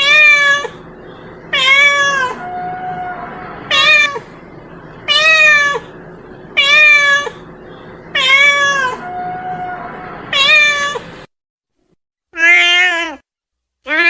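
A cat meowing over and over, about one call every second and a half, each call dropping in pitch at the end. The sound cuts off suddenly about 11 seconds in, then a lower-pitched meow and the start of another follow near the end.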